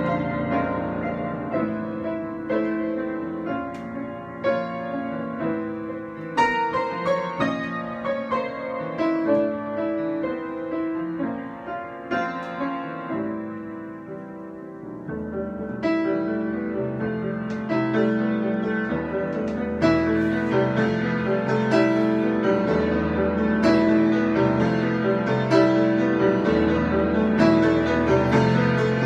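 Solo piano improvisation of struck notes and chords. It softens around the middle, then moves to fuller, sustained low chords that grow louder toward the end.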